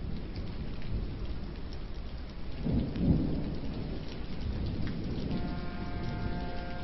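Thunderstorm: steady rain with a low roll of thunder about three seconds in. A chord of steady held tones comes in near the end.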